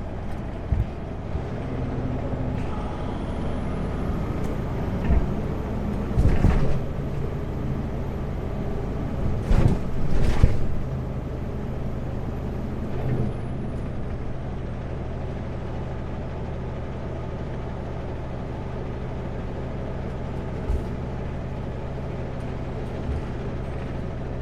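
Kenworth W900L semi truck's diesel engine running steadily under way, heard from inside the cab, with a few short loud noises about six and ten seconds in.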